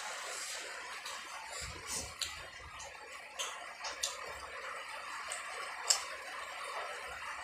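Close-miked chewing and mouth sounds: several sharp, wet clicks and smacks, the loudest about six seconds in, over a steady hiss of rain.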